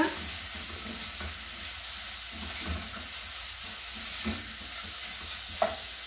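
Grated carrot and onion sizzling in hot oil in a stainless steel frying pan while a spatula stirs and scrapes through them. A short knock about four seconds in and a sharper one near the end.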